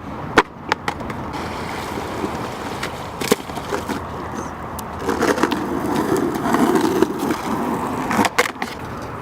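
Skateboard wheels rolling over wet pavement, a steady rumble that grows louder for a couple of seconds midway, with a few sharp clacks of the board.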